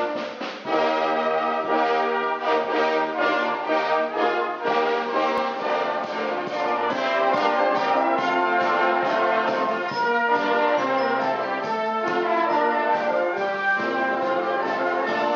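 Brass band playing, with cornets, trombones and tubas sounding together.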